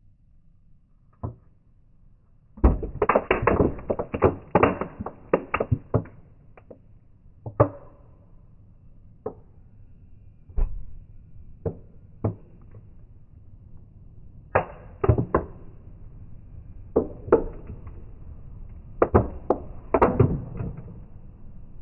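Aluminium drink can crumpling under a sneaker sole: bursts of sharp metallic crackles and crunches, with single clicks between the bursts as the can folds flat.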